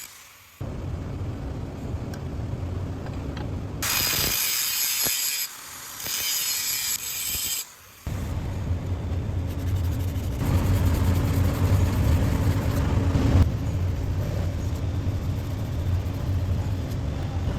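A run of metalworking machine sounds. First a low rumble, then two short bursts of high-pitched grinding or sanding noise about 4 and 6 seconds in, then a steady low machine hum from about 8 seconds in.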